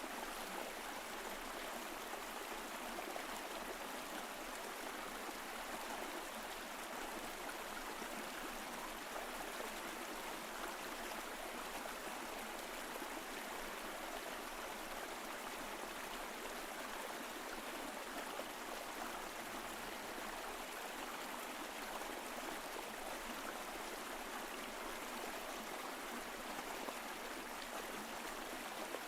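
Mountain stream flowing over rocks: a steady, even rush of water with no breaks.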